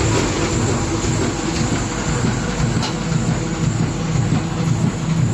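Four-colour flexo printer-slotter line for corrugated boxes running: a steady mechanical clatter with a low hum.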